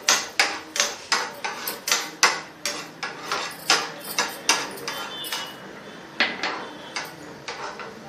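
A spoon clinking and scraping against a non-stick frying pan as sliced almonds are stirred while frying, about two or three strikes a second, sparser in the last few seconds.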